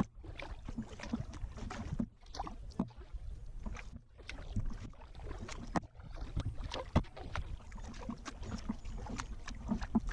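Kayak paddle strokes in calm water: the blades dip and pull with splashing and dripping, alternating sides about every two seconds, over a low rumble of wind on the microphone.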